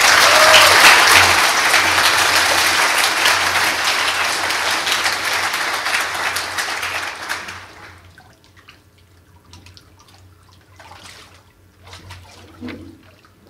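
Congregation applauding a baptism, a dense clapping that fades out about eight seconds in. After it, only faint water movement and a few small knocks from the baptistry.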